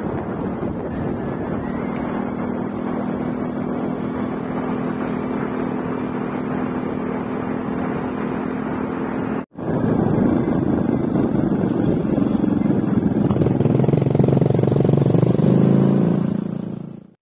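An engine running steadily. It breaks off for an instant about halfway through and comes back louder.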